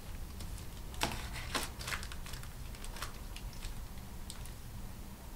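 Light clicks and scrapes of a clear acrylic quilting ruler being shifted on paper over a cutting mat, with a pen tracing along its edge. The sharpest clicks come about one and one and a half seconds in, then fainter scratching.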